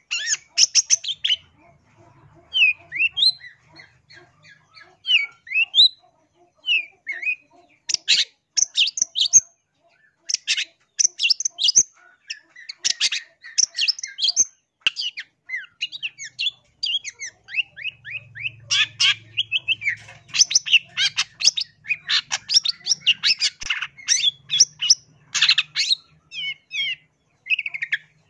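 Long-tailed shrike (cendet) singing: a few soft, short gliding whistles at first, then from about eight seconds in, loud runs of harsh, rapid chattering notes in phrases with short pauses between them.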